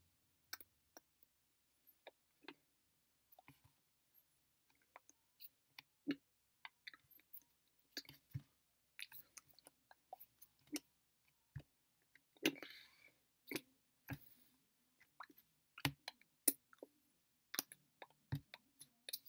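Irregular soft clicks, taps and smacks from hands moving and touching each other while signing, with a short rustle about twelve seconds in.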